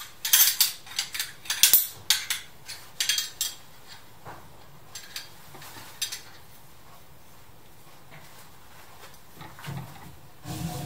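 Metal rescue hardware, carabiners and a rope pulley, clinking and clicking as they are handled on a rope haul system: a quick run of sharp clicks over the first few seconds, a few scattered clicks after, then mostly quiet.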